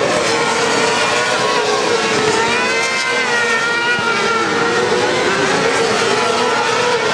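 Several kart cross buggy engines racing on a dirt track. Their overlapping notes rise and fall as the karts accelerate past in a pack.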